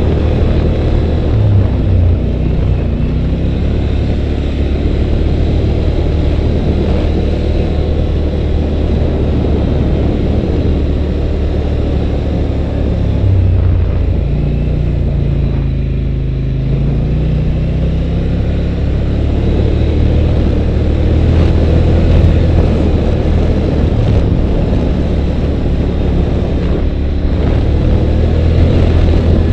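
A 2011 Polaris Sportsman 850 Touring ATV's parallel-twin engine running steadily while riding, close to the on-board camera. The engine note drops and then climbs again about halfway through.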